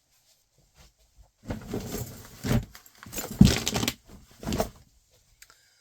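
Several irregular bouts of rustling and bumping close to the microphone, starting about a second and a half in, loudest about halfway through, and dying away near the end.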